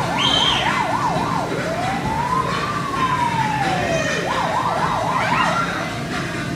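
A siren sound. It warbles fast, about four swings a second, then makes one slow rise and fall, then warbles fast again.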